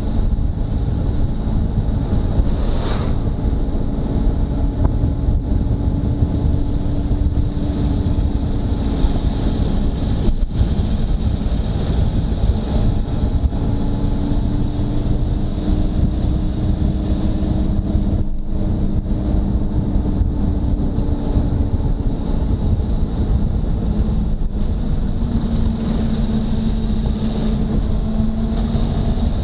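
Motorcycle engine running at a steady cruise, heard from on board with wind rushing over the microphone. Its note drifts gently up and down with the speed.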